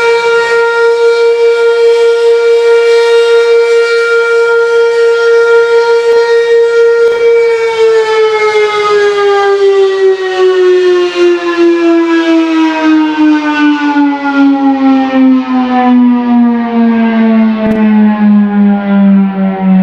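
Sentry 16V2T-B electromechanical warning siren sounding its noon test blast: it holds a steady tone, then about seven seconds in begins to wind down, its pitch falling slowly and evenly to a low growl by the end.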